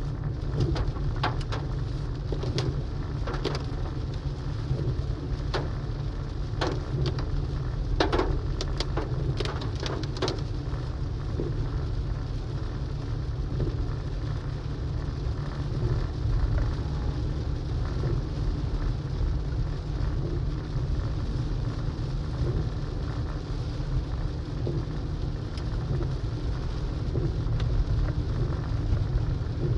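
Rain hitting a moving car's windshield and body, heard from inside the cabin over a steady low rumble of road noise. Sharp drop taps are frequent in the first ten seconds or so, then the rain settles into an even hiss.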